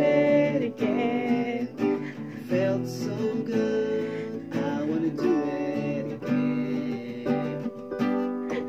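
Acoustic guitar strummed together with keyboard chords, playing an instrumental outro with no singing.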